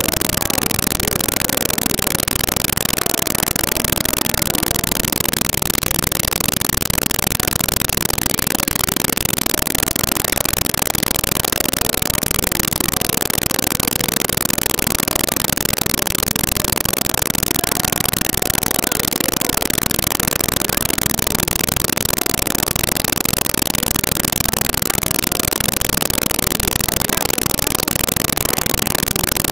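Steady, loud, even hiss of a badly degraded recording, with no distinct sound standing out of it.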